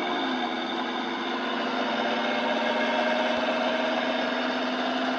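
Drivetrain whine from the driveshaft tunnel of a 2014 Dodge Charger Pursuit, heard inside the moving car as a steady droning tone over road noise. The owner suspects the rear axle, the transmission or the driveshaft's hanger (carrier) bearing.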